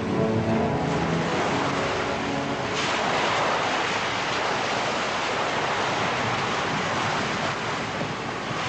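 Sea surf and wind: a steady rushing wash of waves at sea, growing brighter about three seconds in.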